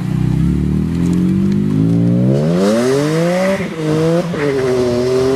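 BMW E46 M3's straight-six, fitted with a Rogue Engineering El Diablo aftermarket exhaust, accelerating hard away. The engine note rises steeply, drops sharply about three and a half seconds in as it changes up a gear, then climbs again.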